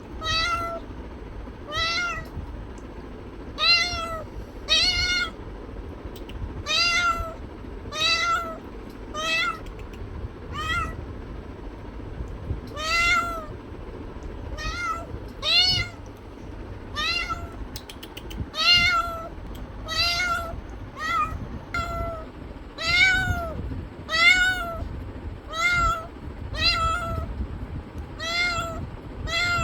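A cat meowing over and over: about twenty short meows, one every second or so, each rising and then falling in pitch.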